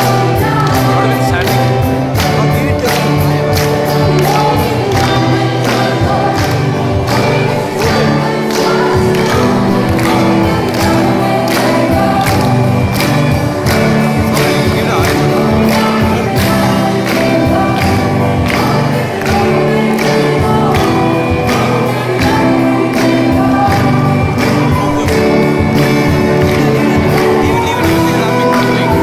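Live rock band playing with electric guitars, bass guitar and a drum kit keeping a steady beat, with a vocalist singing over it.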